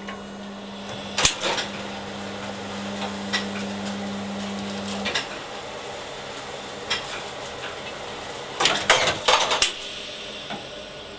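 Steady electric motor hum from the wood-chip feed, cutting off about five seconds in. Sharp metallic clanks and rattles from the sheet-metal chute and feed mechanism come through it, with a quick run of clattering knocks near the end.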